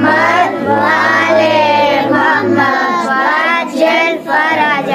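A young voice singing a wavering, melismatic melody, with a low steady hum beneath it for the first half.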